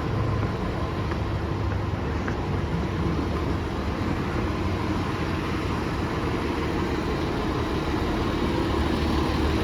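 Steady road-traffic rumble with motor vehicle engines running, growing slightly louder near the end.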